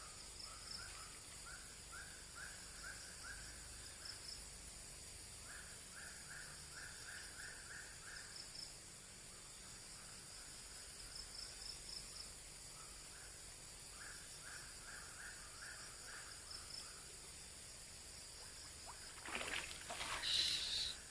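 Outdoor evening ambience with a steady high insect drone, through which an animal calls in three runs of short, evenly spaced notes, about three a second. Near the end comes a brief louder rustle and scuffing.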